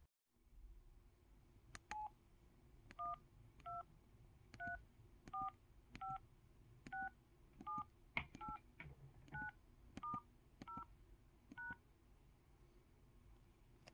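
IM-S330K mobile phone's 'electronic sound' keypad tones: a series of about thirteen short two-tone beeps as keys are pressed one after another, the pitch pair changing from key to key like touch-tone dialing.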